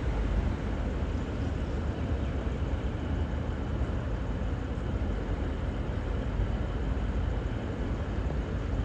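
Steady low rumble of V/Line VLocity diesel multiple units running, with no horn or other distinct sound yet.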